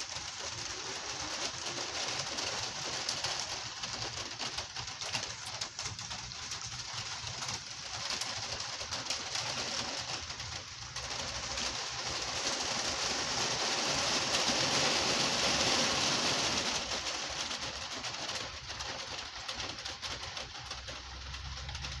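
Gentle rain falling steadily, getting louder for a few seconds in the middle before easing back.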